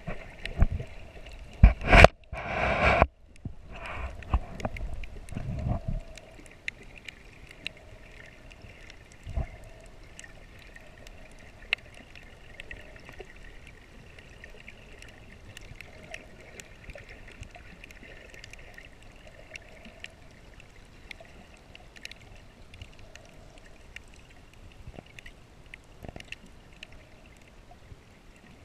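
Underwater sound picked up by a camera held below the surface while snorkeling: muffled knocks and water rushes in the first six seconds, then a faint steady hiss with scattered sharp clicks.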